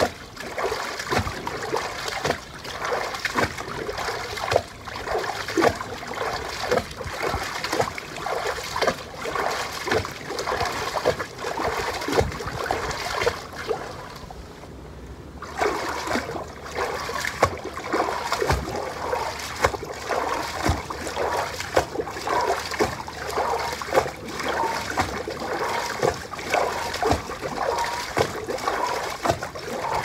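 Water splashing and sloshing as legs march knees-up through shin-deep water in an inflatable pool, a splash at each step in a steady rhythm. It goes briefly quieter about halfway through.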